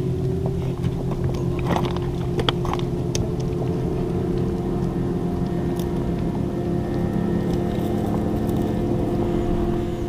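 A motor running with a steady drone of several held pitches, with scattered light clicks and knocks over it.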